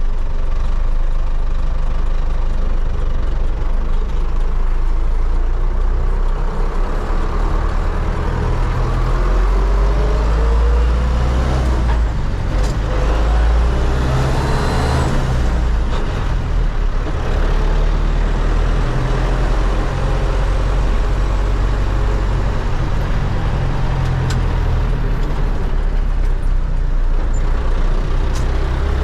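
MTZ-80 tractor's D-243 diesel engine running loud and steady, with a faint tone rising in pitch about a third of the way in and a few light clicks.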